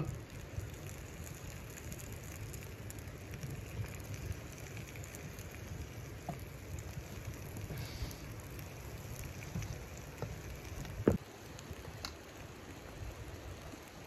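Meat sizzling in a frying pan on a wood stove, a steady crackle over a low rumble, with a single sharp knock late on.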